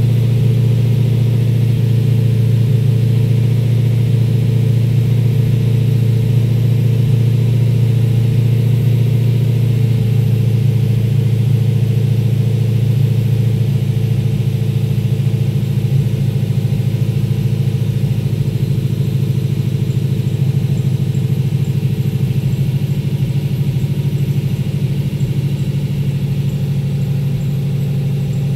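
LS3 V8 with Holley Sniper EFI in a 1978 Pontiac Trans Am, idling steadily while still cold from a cold start. Its exhaust note shifts slightly about ten seconds in, then settles into an even idle.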